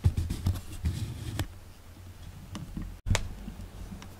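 A few scattered light clicks and rustles over a low steady hum, with the sharpest click just after three seconds in.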